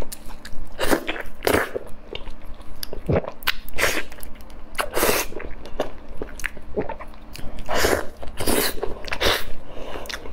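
A person chewing soft durian flesh, with irregular wet mouth smacks.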